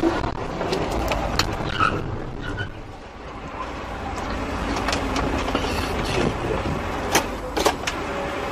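Car driving, heard from a dashcam: steady engine and road noise, with a few short knocks, the sharpest two near the end.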